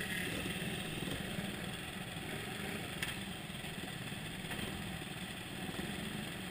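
Motorcycle engines of a bunched group of riders idling and running slowly together, a steady mechanical drone, with one brief click about three seconds in.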